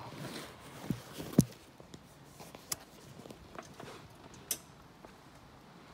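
Quiet handling noises: a few scattered clicks and knocks, the sharpest about a second and a half in, over a faint steady hiss.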